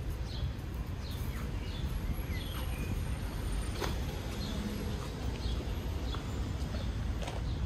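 Birds chirping: many short, descending calls, repeated throughout, over a steady low rumble, with a couple of sharp clicks.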